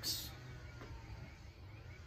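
Quiet background: a low, steady hum with no distinct sound event.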